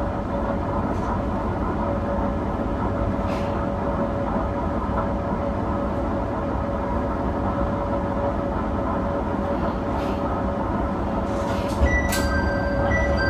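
Diesel railcar running along the line, with a steady engine drone and the rumble of wheels on rail heard from on board. Near the end a click is followed by a short electronic chime.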